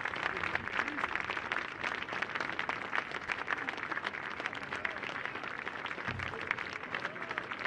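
Crowd applause: a dense, even patter of many hands clapping, with a brief low thump about six seconds in.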